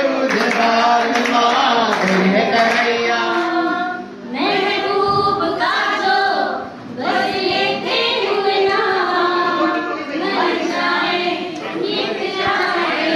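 A group of adults, men and women, singing a song together, several voices at once with long held notes.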